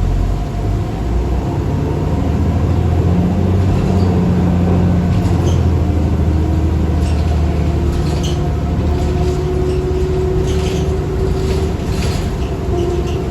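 New Flyer D40LF city bus heard from inside while under way: a steady low diesel drone, with a thin driveline whine that climbs slowly in pitch for several seconds as the bus gains speed and drops near the end, and light rattles. This bus's transmission is called bad.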